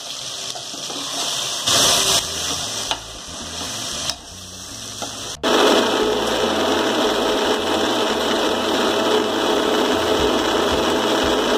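Masala sizzling in a pressure cooker while tomatoes are stirred in with a metal spoon. About five seconds in it cuts suddenly to an electric mixer grinder running steadily, grinding dry coconut.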